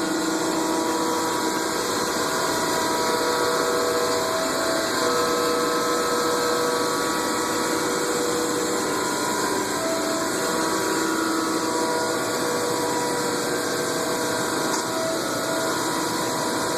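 Thompson surface grinder running: a steady machine hum with several whining tones that shift slightly in pitch and strength, over a constant hiss.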